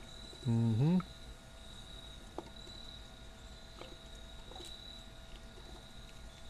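Steady high-pitched cricket trill. A short voiced 'mm' comes about half a second in, and a few faint knocks follow as chopped vegetables drop into the metal pressure-cooker pot.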